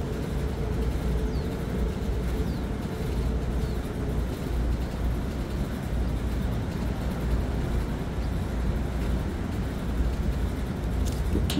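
Steady low outdoor rumble with no clear events, with a faint hum that fades out about four seconds in and a couple of small clicks near the end.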